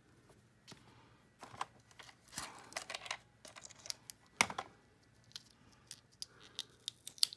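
Tiny plastic doll accessories and their plastic wrapping being handled by hand. A stretch of rustling and crinkling around two to three seconds in, a sharp click a little past four seconds, and a run of light clicks and taps near the end.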